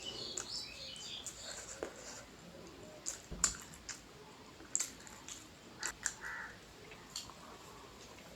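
Close-up eating sounds: chewing with wet mouth clicks and lip smacks, a few sharper ones in the middle.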